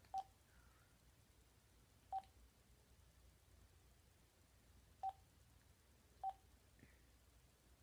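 Phone keypad beeping as a number is dialled: four short tones, unevenly spaced, each a separate key press.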